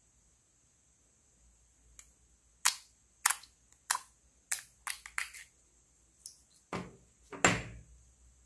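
Clear slime in a glass ashtray poked and pressed with fingertips, giving a string of sharp clicking pops about every half second, starting about two seconds in. Near the end the slime is pulled out of the dish with a longer, louder sticky squelch.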